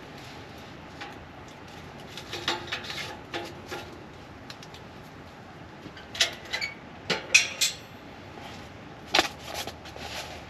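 Clinks and knocks of hard items, like cookware or metal gear, being handled, in three short clusters over a steady low background.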